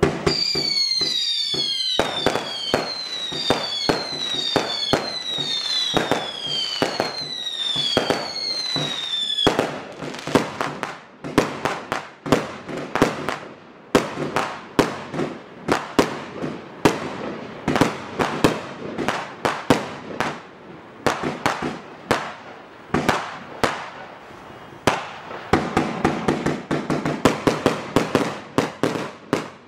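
Gemstone Fireworks 'Obsessed' 225-shot compound firework cake firing. For roughly the first third, shrill whistles falling in pitch come about once a second over sharp launch bangs. Then a dense string of shots and bursting bangs follows, ending in a fast volley.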